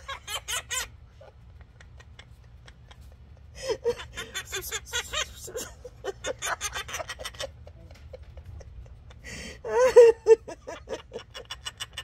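A woman laughing in three bouts of quick giggling pulses, loudest about ten seconds in.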